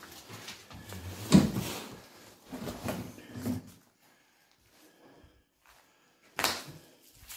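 Footsteps and scuffs over debris on a floor, heard as separate knocks: the loudest about a second and a half in, a group around three seconds, then a quiet spell and one more near the end.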